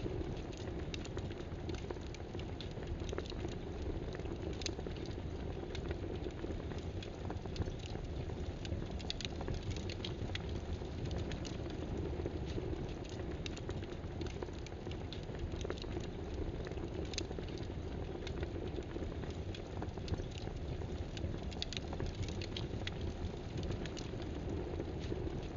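Steady rain-like pattering hiss with scattered small ticks and crackles.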